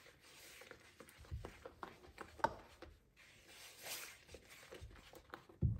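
Wire whisk stirring thick cake batter in a mixing bowl: an uneven run of quick scrapes and clicks, with a sharp click about halfway and a low thump near the end.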